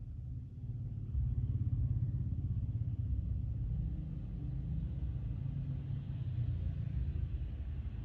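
Low, steady vehicle rumble heard from inside a stationary car, with the hiss of an approaching vehicle building in the second half as it passes close by near the end.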